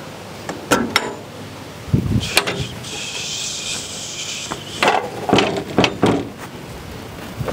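Steel smoker cabinet door being opened: its latch clicks twice, then the heavy door swings open with a low thump. A steady hiss follows for about two seconds, then a few knocks and creaks.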